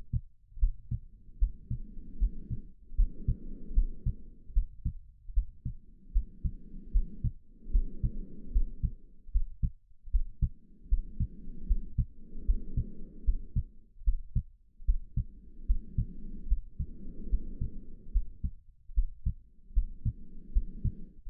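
Heartbeat sounds: steady low thumps, overlaid by breathing that swells and fades in slow, regular breaths about every two seconds.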